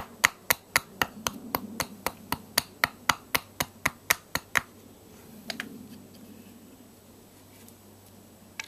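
Small hatchet chopping at a split log section, a quick even run of sharp knocks about four a second that stops about four and a half seconds in, followed by a couple of lighter knocks.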